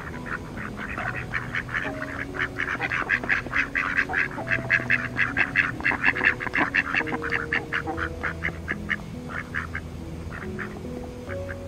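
Mallard ducks quacking in a rapid chattering run of short calls, several a second, thinning out to scattered quacks near the end.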